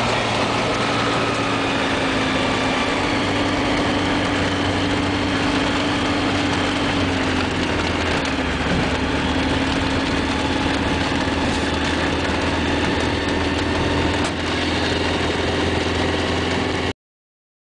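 Kitfox light aircraft's engine and propeller running at low power while taxiing, heard inside the cockpit: a steady drone whose pitch shifts slightly a few times. It cuts off suddenly near the end.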